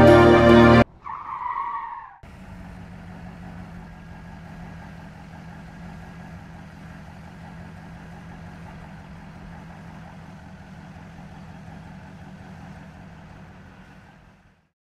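Music cuts off, then a car's tyres screech for about a second under hard braking. A steady low hum with a faint hiss follows and fades out near the end.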